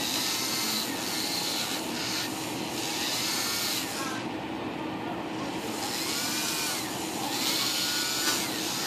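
Electric nail file (e-file drill) whirring as it works over acrylic nails. Its high hiss drops away for about a second and a half near the middle, then comes back.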